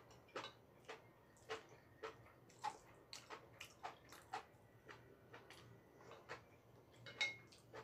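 Faint, irregular clicks and taps, roughly two a second, of a metal utensil and wooden chopsticks knocking against a pan while noodles are stirred and mixed.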